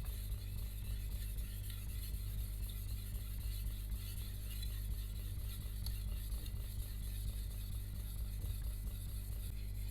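Steel blade of a Shun VG10 Chinese cleaver being stroked over and over across a wet 1000-grit Imanishi Arashiyama whetstone, a steady soft scraping, under background music.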